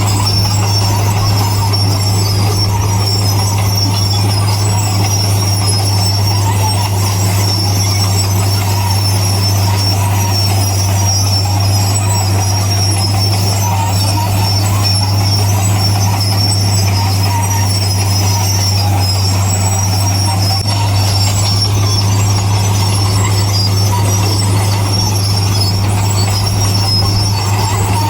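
Bulldozer's diesel engine running steadily, a deep constant hum with a high whine above it.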